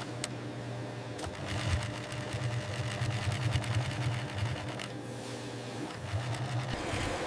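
Industrial sewing machine running and stitching leather, its needle going in a rapid, even patter over a low motor hum. It is louder and busier from about a second in to about five seconds in, then runs again briefly near the end.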